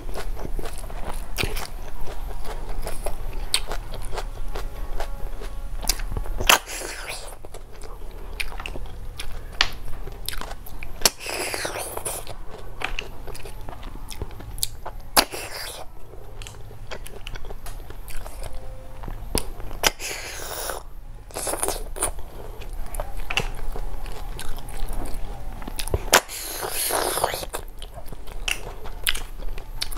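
Close-miked eating of snail curry with rice and salad: steady chewing and crunching with many sharp clicks, and a few longer noisy sounds of about a second each. A low steady hum runs under the first few seconds.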